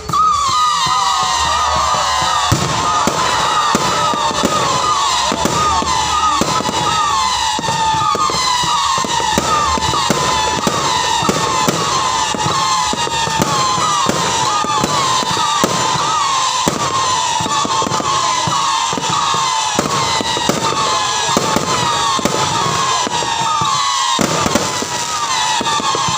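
Dense fireworks barrage: many overlapping whistling shells and a rapid stream of bangs and crackles, running without a break apart from a short dip near the end.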